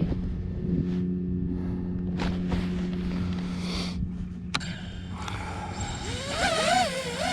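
FPV racing quadcopter's brushless motors and propellers: a steady low hum, then from about five seconds in a whine whose pitch wavers up and down as the throttle changes.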